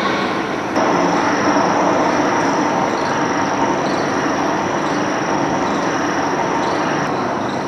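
Steady mechanical running noise from oil refining machinery, with a thin high whine over it that starts about a second in and stops near the end.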